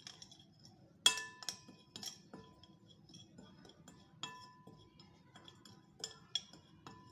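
Metal spoon clinking and tapping against a glass mixing bowl while stirring dry ground spices, with short ringing clinks at irregular intervals; the loudest comes about a second in.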